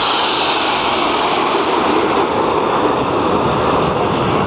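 BAE Hawk T1 jet trainers flying over in close formation, a steady loud rush of jet engine noise.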